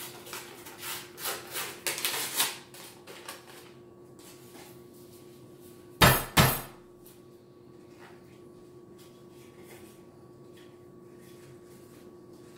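The paper wrapper of a cardboard can of refrigerated croissant dough being peeled off in a run of rough tearing rustles, then about six seconds in two loud knocks as the can is struck against the countertop edge to burst the seam open.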